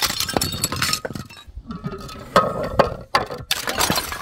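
Glass bottles clinking and breaking: a dense run of sharp glass impacts with ringing in the first second, then separate hits from about halfway through to near the end.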